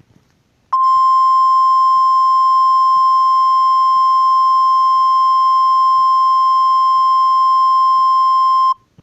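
Emergency alert attention tone: a single steady, loud beep near 1 kHz, starting just under a second in, held for about eight seconds, then cutting off sharply.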